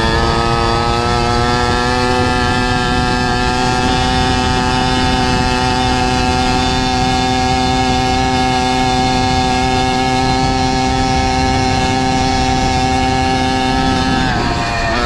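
Zeda 80 two-stroke motorized bicycle engine running at steady high revs while riding, with wind rumbling on the microphone. The engine note creeps up slowly, then drops briefly near the end as the throttle comes off, and picks up again.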